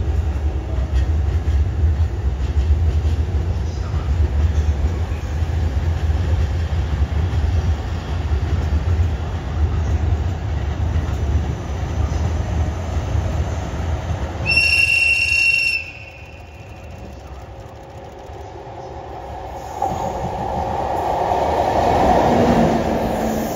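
A steady low rumble gives way to one loud, high-pitched whistle blast from the EF64 electric locomotive, lasting just over a second. From about 20 s in, the locomotive runs past close by, its running noise rising to a peak near the end.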